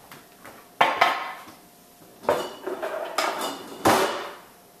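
A few sharp clinks and knocks of glass and metal, each ringing briefly, as a glass jar of juice is closed with its lid.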